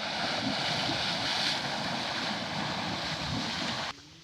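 Steady rush of splashing, spraying water, cutting off abruptly near the end.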